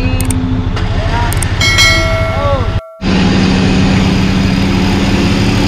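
Off-road 4x4 engine running steadily, with brief shouted voices over it in the first half. The sound drops out for a moment just before the middle, then the engine runs on.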